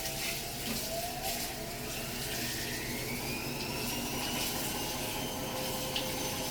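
Washing machine running, with a steady sound of moving water and a motor whine that rises slowly in pitch from about a second in.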